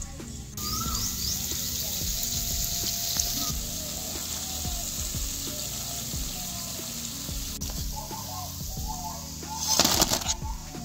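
Dal boras (lentil fritters) sizzling as they deep-fry in hot oil in a kadai, a steady hiss. Near the end a loud crackling rustle as the fried boras drop into a paper-lined bowl.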